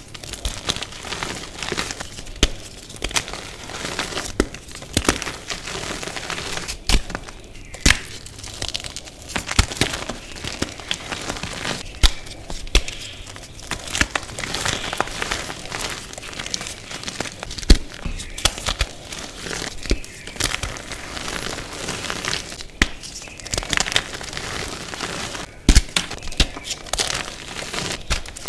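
Reformed gym chalk crushed in the hands: dry, crunchy crumbling with frequent irregular sharp cracks as chunks snap and break apart.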